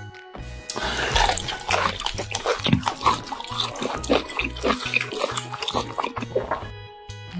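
Close-up eating sounds, with rapid wet chewing, smacking and slurping, over a steady electronic dance beat.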